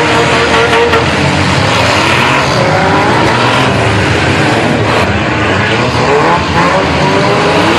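Several demolition derby cars' engines running and revving at once, loud, their pitches rising and falling over one another.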